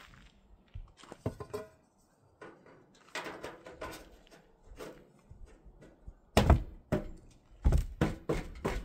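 Irregular knocks and thumps of metal chimney pipe being handled and fitted. The heaviest thumps come in the second half.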